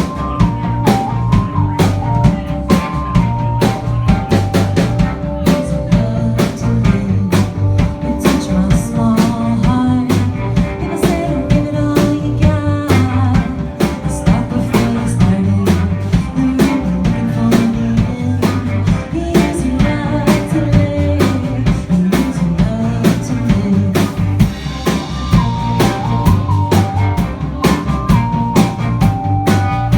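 A rock band playing live: a drum kit keeps a steady beat with frequent snare and rimshot hits, under a bass line and a melodic lead line that moves in held, stepping notes.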